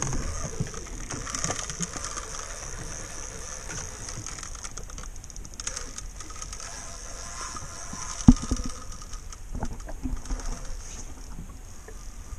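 Spinning reel ticking and whirring under load while a large wels catfish is played on a hard-bent rod, with one sharp knock a little after eight seconds in.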